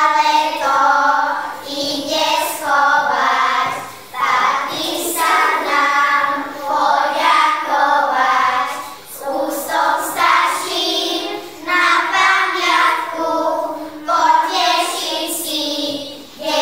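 A group of young children singing a song together in phrases.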